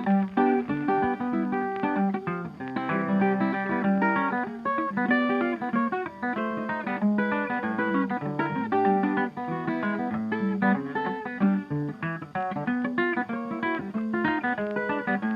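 Background music: acoustic guitar playing quick plucked notes and strums in a flamenco-like style.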